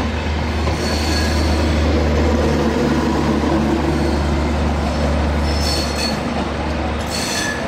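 Coaches of a Bangladesh Railway intercity passenger train rolling past close by: a steady loud rumble of wheels on rails, with a few brief high wheel squeals.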